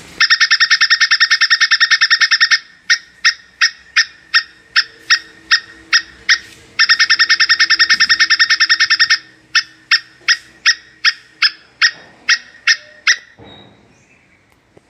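Plantain squirrel (coconut squirrel) giving its mating call. A rapid chattering trill lasts about two and a half seconds, then sharp single chips come two or three a second. The trill returns for about two seconds, then more spaced chips fade out about two seconds before the end.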